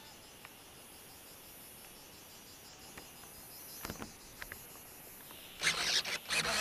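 Steady, faint, high-pitched insect chorus with a few small clicks. About five and a half seconds in, loud rustling and scraping handling noise starts on the glider's onboard camera.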